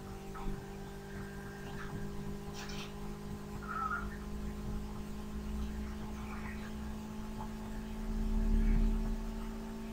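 Steady electrical hum on the audio line, with a low rumble that swells for about a second near the end and a few faint small noises.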